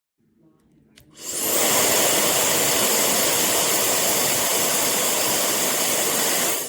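Labiim high-speed hair dryer with a brushless motor switched on with a click, spinning up with a brief rise in pitch, then blowing steadily with a strong airy rush and faint high whine before cutting off abruptly near the end.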